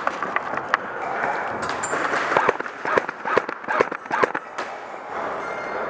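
Scattered airsoft gunfire: a run of irregular sharp snaps and cracks, thickest in the middle few seconds.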